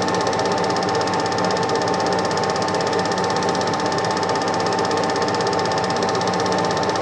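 Super 8 film projector running: a fast, even mechanical clatter of the film transport with a steady whine underneath.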